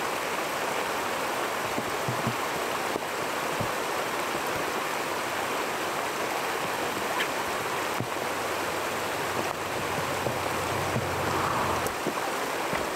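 Steady hiss of falling rain, with a few faint ticks. A faint low hum joins it for a few seconds in the second half.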